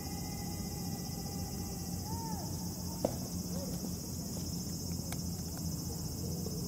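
Steady high-pitched drone of summer insects, with a faint held tone that ends about two seconds in and a single sharp tap about three seconds in.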